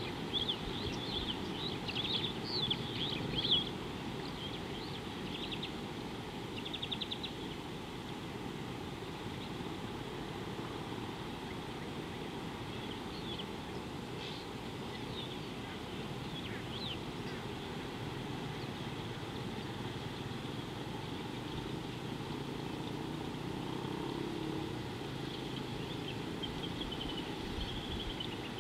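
Wild birds calling in short chirps and whistles, busiest in the first few seconds, with a rapid trill about seven seconds in and scattered calls later. Under them runs a steady low rumble of outdoor background noise.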